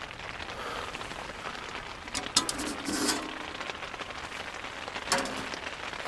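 Steady rain falling on the tent fabric, heard from inside the tent, with a few short knocks about two, three and five seconds in.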